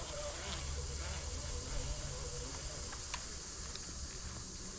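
Steady outdoor background: a constant high insect drone over a low rumble, with a faint distant voice in the first half and a couple of small clicks.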